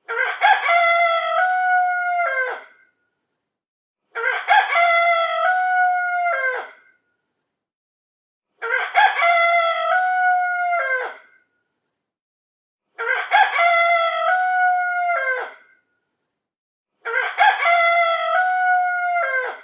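Rooster crowing cock-a-doodle-doo five times, the same crow about every four seconds with dead silence between. Each crow lasts about two and a half seconds and drops in pitch at the end.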